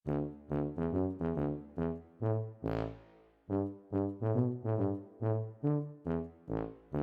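Brass music, a run of short detached notes in a bouncy rhythm with one longer held note partway through, starting abruptly out of silence.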